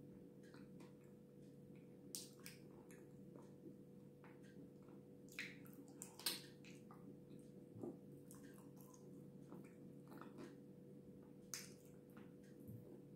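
Close-up mouth sounds of eating thick cream off the fingers: soft wet smacks and lip clicks scattered throughout, the sharpest about six seconds in. A faint steady hum lies underneath.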